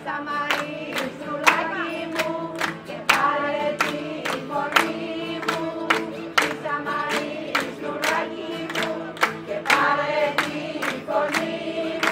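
Traditional Greek folk dance music: a group of voices singing together over held instrumental notes, with a steady beat of sharp strikes about two to three a second.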